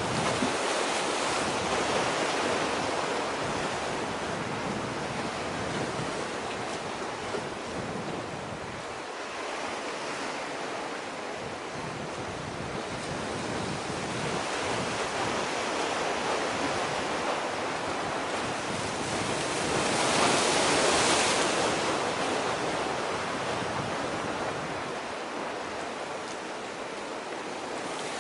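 Steady rushing of sea surf and wind, with no tones in it, swelling louder for a couple of seconds about two-thirds of the way through.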